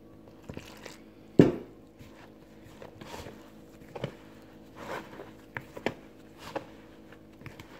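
Hand mixing flour and hot water into dough in a plastic bowl: irregular rustling, scraping strokes as the crumbly dough is worked, with one sharp knock about a second and a half in.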